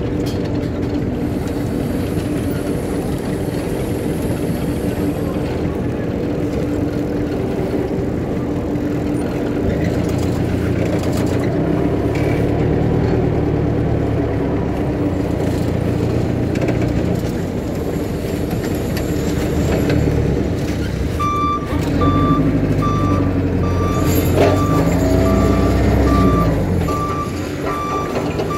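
Forklift engine running as it is driven, picking up twice in the middle and near the end. In the last seven seconds a reversing alarm beeps evenly, about one and a half beeps a second.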